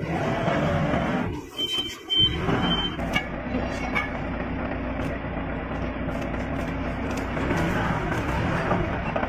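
A forklift's engine running steadily, with a short run of high beeps about two seconds in and a couple of sharp clinks soon after.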